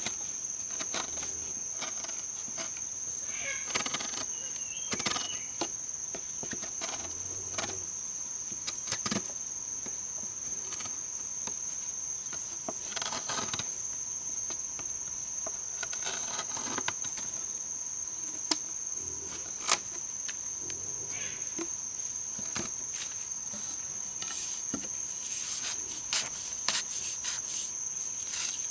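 A steady, high-pitched insect drone, with scattered sharp taps and short scraping sounds from a knife blade cutting and paring a hole into a green bamboo pole.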